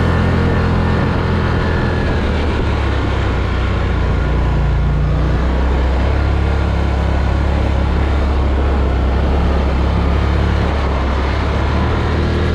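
Polaris Scrambler XP 1000S ATV's twin-cylinder engine running steadily at light, part throttle under way, with its note shifting briefly about five seconds in. A new drive belt is being broken in.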